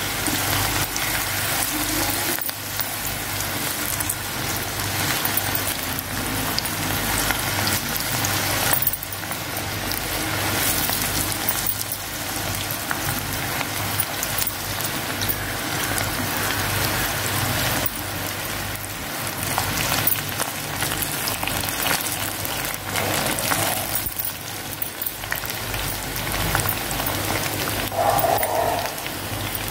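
Battered green cashew pakoda deep-frying in a pan of hot oil: a steady, dense sizzling with fine crackles, as more pieces are dropped in.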